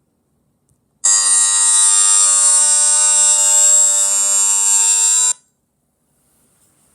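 A loud, harsh, steady electronic alarm buzz that starts about a second in and cuts off suddenly about four seconds later.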